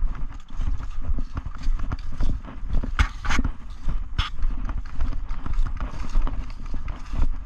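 Footsteps walking over the ground, a steady run of dull thuds with rustling. A sharp snap about three seconds in and another about a second later stand out above the steps.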